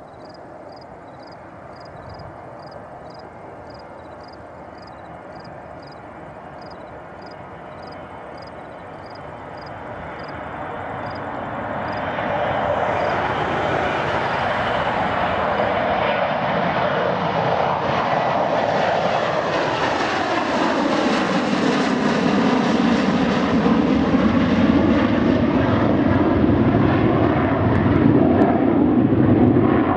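Boeing 727-200's three Pratt & Whitney JT8D turbofans at take-off power, starting as a distant rumble and swelling about ten seconds in to a loud, steady jet noise as the plane climbs out. The noise takes on a sweeping, phasing rush as the jet passes by.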